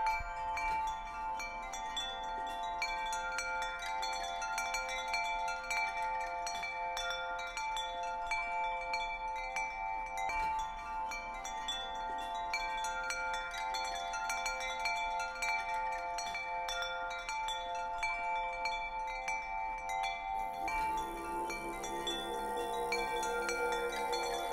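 Wind chimes tinkling over a bed of long-ringing tones at fixed pitches; about 21 seconds in, a lower set of tones comes in.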